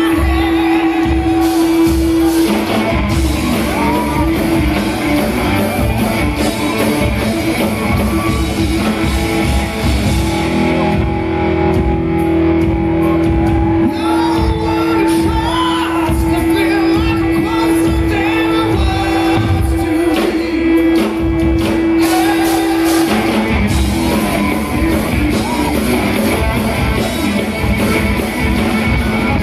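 Live rock band playing loud: electric guitar, bass guitar and drums, with a man singing lead.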